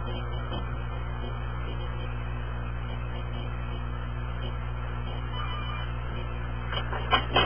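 A steady low hum, with two short sharp clicks about seven seconds in.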